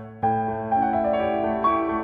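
Background piano music: calm notes and chords struck every half second or so, each left to ring and fade.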